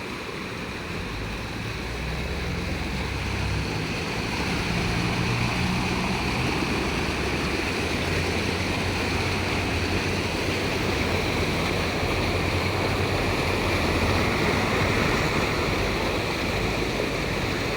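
Swollen floodwater from an overflowing canal rushing through a barrier and drainage outlet: a steady rush of water, with a low rumble underneath.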